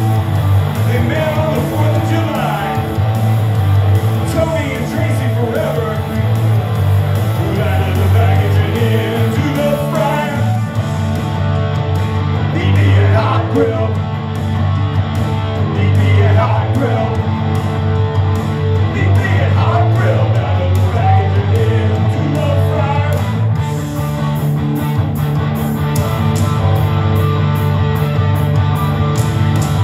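Live rock band playing a song: amplified electric guitar with a singer's voice over it and a steady heavy low end.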